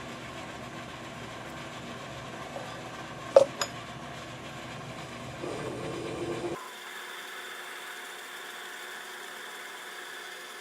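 Metal lathe running steadily while turning a small pin, with two sharp metallic clinks about three and a half seconds in. About six and a half seconds in the sound changes abruptly to a different, thinner steady machine hum.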